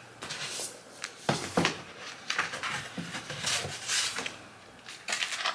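Handling noise as a hardback book is taken from a stack and set on a folding book stand: a string of light knocks, clatters and scrapes.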